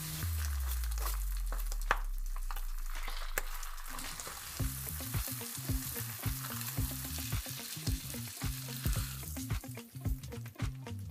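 Close-up crunching and chewing of crispy fried chicken, a crackly stream of small crunches. Background music runs underneath: its bass slides down over the first few seconds, then settles into a steady beat.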